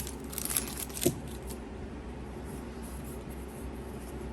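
Faint rustling of trading cards and a foil booster-pack wrapper being handled, with a light tap about a second in. The rustling fades after about a second and a half, leaving a low steady hum.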